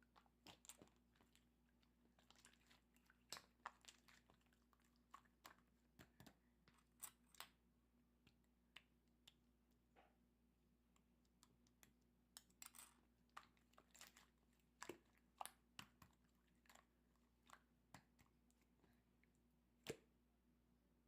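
Slime being squeezed and poked by hand, giving faint, irregular small clicks and pops.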